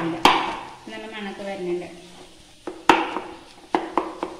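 Wooden spatula stirring a mash of cassava and egg in a nonstick frying pan, knocking sharply against the pan about a quarter second in and again near three seconds, with a few lighter taps near the end.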